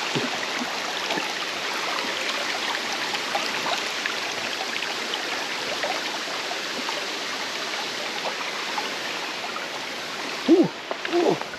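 Steady rushing of a creek's water. About ten and a half seconds in come a couple of short vocal sounds.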